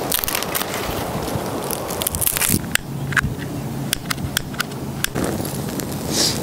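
Dry brushwood twigs and branches snapping and crackling, with many sharp cracks in the middle, then a rush of noise near the end as the dry kindling catches fire.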